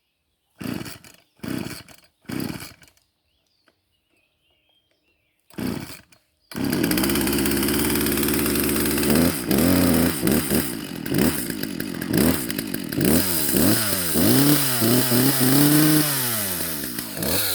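Two-stroke chainsaw being pull-started. It fires briefly on several pulls and catches about six and a half seconds in. It then runs steadily and is revved up and down again and again.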